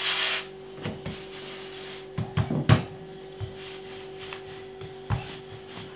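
A hand brushing flour across a wooden kneading board, then a wooden rolling pin knocking against the board a few times, loudest a little under 3 seconds in, as dough is rolled out. A steady faint hum lies underneath.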